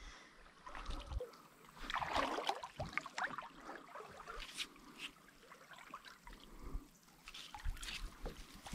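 Shallow river water trickling and splashing lightly, with scattered small knocks and clicks from a kayak and paddle being handled. It is loudest about two seconds in.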